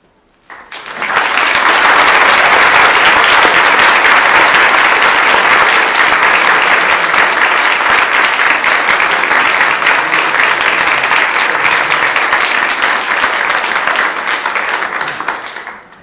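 Audience applauding, a steady dense clapping that swells up about a second in and dies away just before the end.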